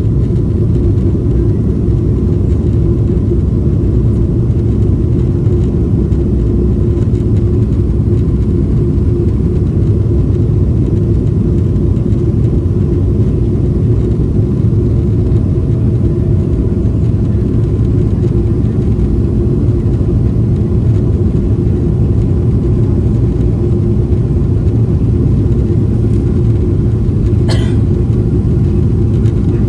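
Steady low rumble inside the cabin of a Boeing 777-300ER during climb-out after takeoff: its GE90 turbofan engines and the airflow over the fuselage. A faint steady tone sits above the rumble, and there is one brief click near the end.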